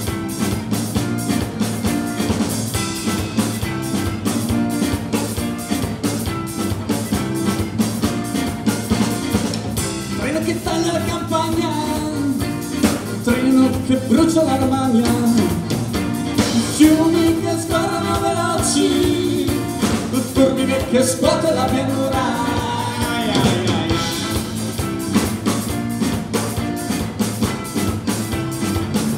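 Live folk-rock band playing: electric guitar, bass guitar, drum kit and accordion on a steady driving beat. A woman's voice sings the melody from about ten seconds in until a little after twenty seconds, then the band plays on without singing.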